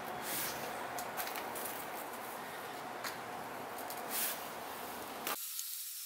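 Hands pressing and rubbing damp clay-bonded green sand (kitty-litter green sand) into a wooden casting flask, giving a gritty scraping and crunching with irregular small clicks. The gritty noise stops abruptly about five seconds in.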